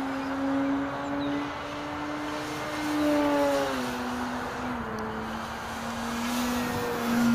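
Electric motor and propeller of an E-flite Beast 60E RC biplane in flight: a steady drone that steps down a little in pitch about halfway through as the throttle changes, swelling and fading as the plane manoeuvres.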